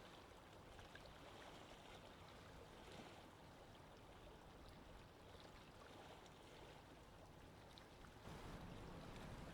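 Faint, steady ocean ambience of moving water and wind, growing louder and heavier in the low end about eight seconds in.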